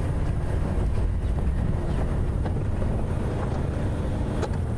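Game-drive vehicle's engine running with a steady low rumble, with some wind noise on the microphone.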